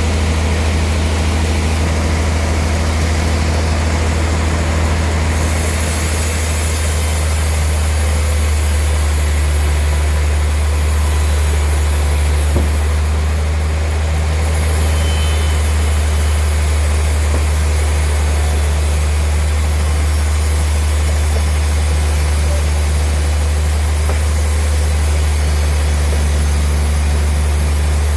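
Sawmill machinery running with a steady, loud low drone. A higher hiss joins about five seconds in, and there is one sharp knock near the middle.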